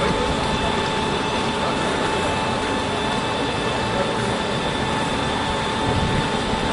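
Articulated trolleybus standing at a stop, its electrical equipment giving a steady whine over a constant rumbling street hum.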